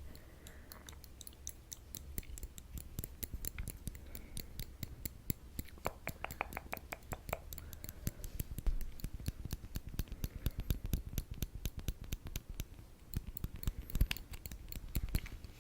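Metal tweezers clicking and snapping shut close to the microphone, a fast, uneven run of sharp ticks, several a second.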